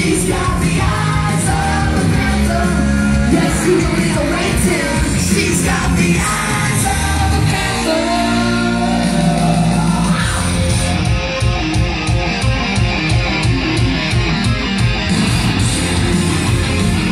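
Heavy metal rock music with a woman singing lead over it. About ten seconds in her voice slides up in a long yell, and the music then settles into an even chugging beat.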